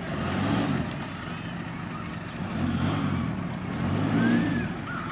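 A vehicle engine revving up and easing off three times over a steady outdoor hum.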